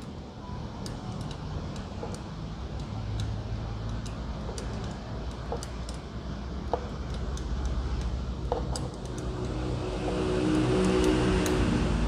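Scattered light clicks and taps of a screwdriver and wiring being worked at a scooter's frame, over a steady low hum. A vehicle engine comes in and grows louder over the last two seconds or so.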